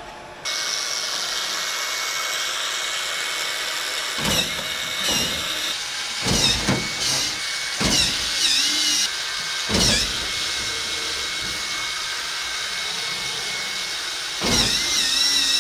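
Power screwdriver or drill running in short bursts, about six times, its whine bending in pitch under load, over a steady mechanical hiss and whine.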